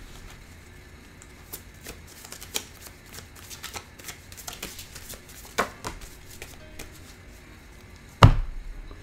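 Tarot cards being shuffled and handled, giving scattered soft clicks and snaps, with one louder sharp knock near the end.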